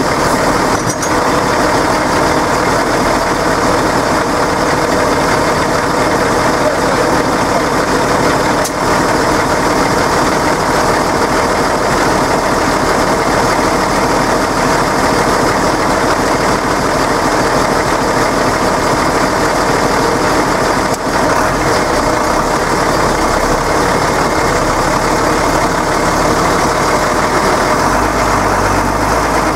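Deutz-Fahr tractor's diesel engine idling steadily.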